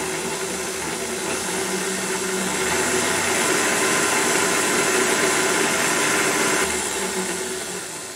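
Electric stand mixer running at medium-high speed, its wire whisk beating heavy whipping cream with powdered sugar in a stainless steel bowl toward peaks. The steady motor-and-whisk noise grows louder a few seconds in, then fades near the end.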